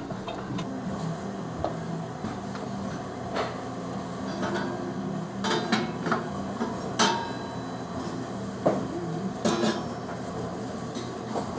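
Metal engine fittings clinking and clicking against the casing as they are handled and fitted by hand, with music playing in the background.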